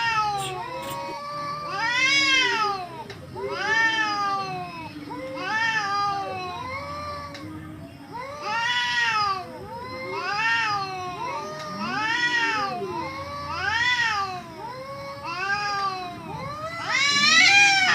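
Cats caterwauling in a fight: a run of about ten long, drawn-out yowls, each rising and then falling in pitch, with lower growling yowls overlapping between them. The loudest yowl comes near the end.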